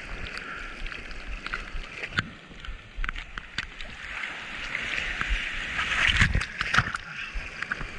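Whitewater sloshing and splashing against a foam surfboard right at the camera, with sharp slaps of spray throughout, loudest about six seconds in.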